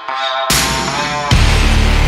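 Background electronic music in a dubstep style, with a heavy bass drop about a second and a half in.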